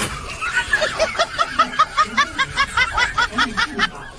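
Rapid high-pitched giggling laughter: a quick run of short rising-and-falling notes, about six a second.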